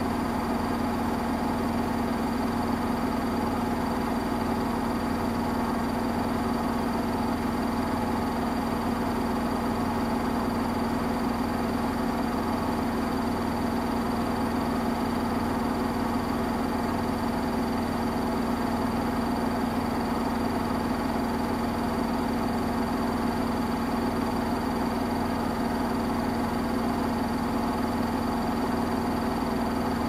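Samsung Eco Bubble front-loading washing machine running its quick wash cycle with a steady, unchanging hum.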